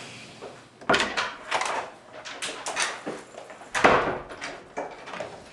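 A door opening: a run of clicks, knocks and rattles from the latch and handle. The loudest knocks come about one second and about four seconds in.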